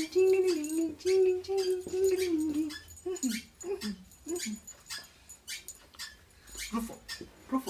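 A dog whining: a long, wavering whine, then several short falling whimpers, with scattered light clicks throughout.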